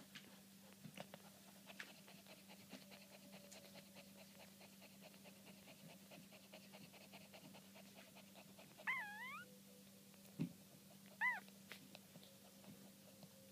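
Newborn Maltipoo puppies squeaking while nursing: two short high squeaks that bend up and down in pitch, about nine seconds in and again two seconds later, with a soft low thump between them. Faint clicking suckling sounds run underneath.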